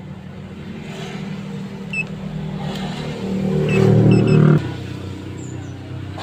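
A motor vehicle engine running, revving up for a second or so a little past the middle and dropping back abruptly, with a few short high chirps.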